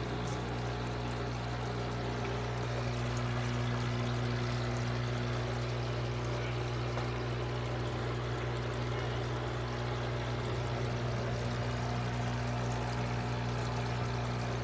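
Aquarium water pump running with a steady hum, with water pouring and splashing into the fish tank.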